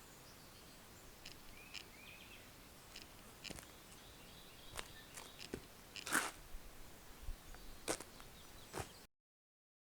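Quiet outdoor ambience with a few faint bird chirps and scattered sharp clicks and knocks, the loudest about six seconds in; the sound cuts off suddenly about nine seconds in.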